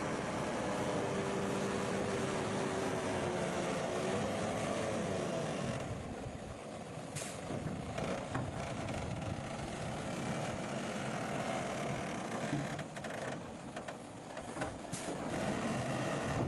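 Komatsu bulldozer's diesel engine running steadily, somewhat quieter after about six seconds, with several sharp knocks scattered through the latter part.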